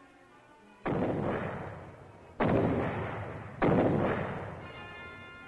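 Three grenade explosions in quick succession, the second and third about a second and a half and then a second apart, each dying away over a second or so.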